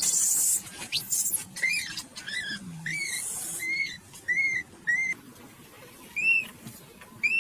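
Baby macaque crying: a string of about eight short, high-pitched squeals, each rising then falling in pitch, most of them close together in the first five seconds, after a harsh, noisy squeal at the start. These are the distress cries of an infant that has fallen.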